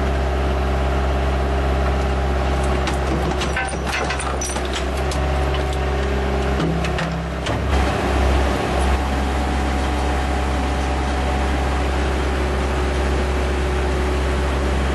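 Engine crusher running with a steady, loud low hum from its drive. From about three to seven and a half seconds in, sharp metallic clanks and cracks come through as engine parts are broken up.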